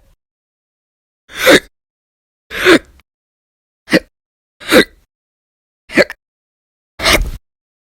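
A woman's loud hiccups: six sharp hics in a row, roughly one a second, each a brief voiced gulp. The last one is a little longer.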